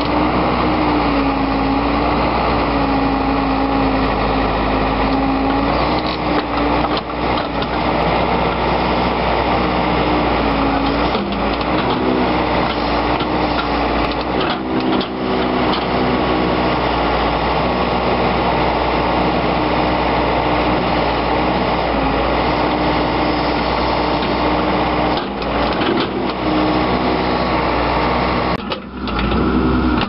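Case 580 Super L backhoe's four-cylinder diesel engine running under load while the backhoe bucket digs into rocky clay, the engine pitch stepping up and down as the hydraulics work.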